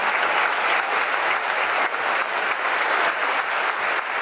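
A large audience applauding, a steady mass of clapping.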